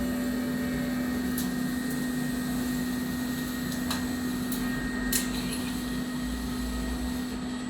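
Portable standing-seam roll forming machine running with a steady motor hum, a few faint ticks over it.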